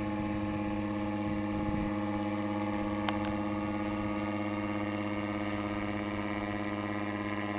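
Paramotor engine droning steadily at constant throttle as the paramotor flies overhead, with a single short click about three seconds in.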